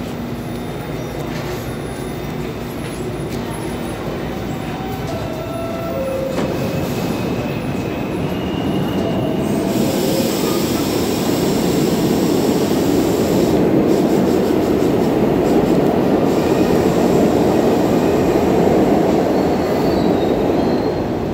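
R68A subway train starting to pull out of the station: short wheel squeals over a low rumble, then the running noise of the cars swells from about halfway through and stays loud, with a few high squeals near the end.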